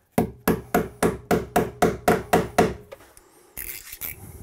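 A hammer driving cable staples into a wooden ceiling joist to fasten electrical cable: about ten quick, even strikes, about four a second, each with a short ring. A brief scraping sound follows near the end.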